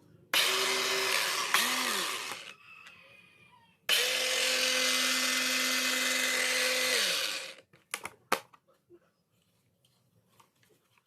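Homemade onion slicer driven by a converted old Supra motorcycle starter motor on a 20 V cordless-drill battery, run twice: about two seconds, then about three and a half seconds. Each run starts abruptly with a steady whine and a dense whir, and winds down with a falling pitch. A couple of sharp clicks follow.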